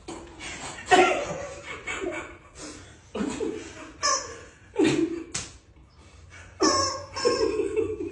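Group of men laughing in several loud bursts, with one sharp snap a little after five seconds in.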